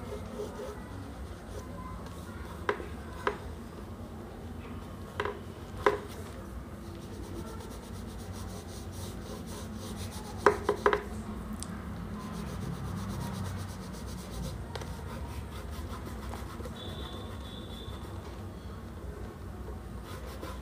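Pastel stick rubbing on drawing paper as an area is coloured in dark brown, with a few short sharp clicks and taps.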